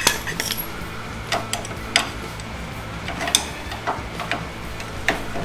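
Scattered, irregular metallic clicks and taps from hand tools and a ratchet working on a coilover shock's mounting hardware, over a steady low hum.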